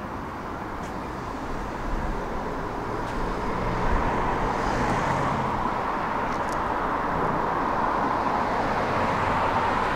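Tram running along the track: a steady rumble of wheels on rails with a wheel-noise band. It grows louder about two to four seconds in, then holds steady.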